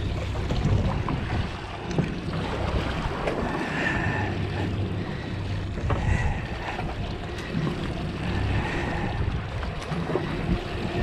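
Wind buffeting the microphone over the wash of waves against the boat's hull, a steady rushing noise.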